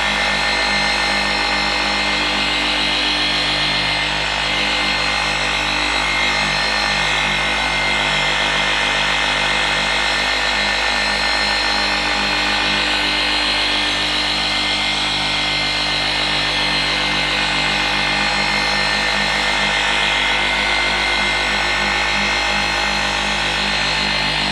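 Flex XFE 7-15 150 random orbital polisher running at a steady speed on setting four, its foam pad pressed against a car's painted panel: an even motor whine with the pad rubbing. Under the pressure the machine holds its speed without bogging down.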